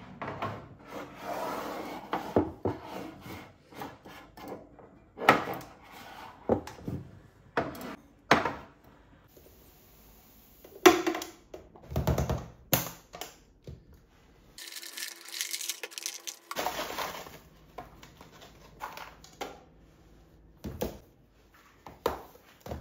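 Cleaning-cloth rubbing on cupboard surfaces, then plastic food-storage containers being picked up, set down and shifted on a countertop: an irregular run of knocks and clacks with rubbing between them.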